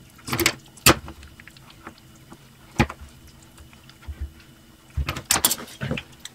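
Hands tying and knotting thin natural twine around a T-shirt rolled onto a stick: scattered short rustles and sharp clicks, with a busier cluster of handling noise about five seconds in.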